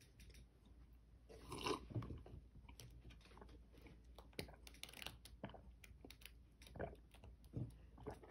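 Near silence with faint, irregular small clicks and soft knocks scattered through, a few slightly louder than the rest.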